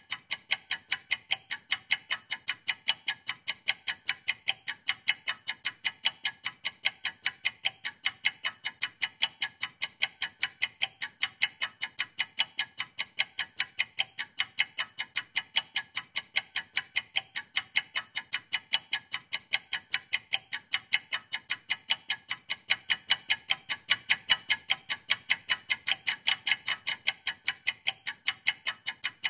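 Ticking-clock countdown sound effect: fast, perfectly even ticks, several a second, marking a 60-second timer running down.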